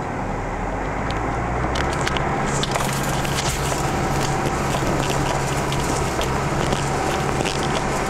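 Off-road 4x4 driving slowly over a rough dirt track, heard from inside the cabin: a steady low engine and road drone with frequent small clicks, knocks and crackles as the vehicle jolts along.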